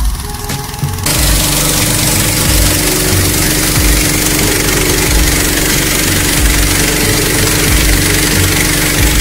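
Petrol-engine inflator fan running hard, blowing a steady rush of cold air into a hot air balloon envelope during cold inflation. The engine hum and the rushing air get suddenly louder about a second in, then hold steady.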